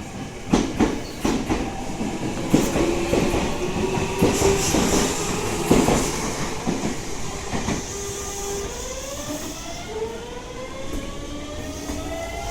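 Tokyo Metro 03 series electric train on the move: wheels clicking and knocking over rail joints for the first several seconds, then from about eight seconds in the traction motors' whine rising steadily in pitch as the train accelerates.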